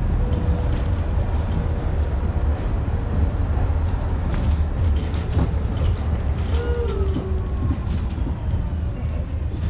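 Cabin of an Alexander Dennis Enviro400H MMC hybrid double-decker bus under way: steady low drivetrain and road rumble, with scattered clicks and rattles from the interior fittings.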